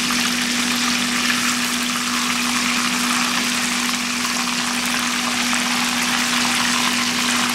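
Chicken pieces deep-frying in a pot of hot oil: a steady, dense bubbling sizzle, with a steady low hum underneath.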